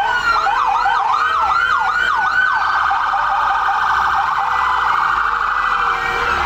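Fire engine's electronic siren on a fast yelp, about three rising sweeps a second. About two and a half seconds in it switches to a very rapid warble.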